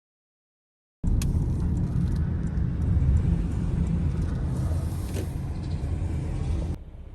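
A car on the move: steady road and engine noise, heaviest in the low end, starting suddenly after about a second of silence and dropping away shortly before the end.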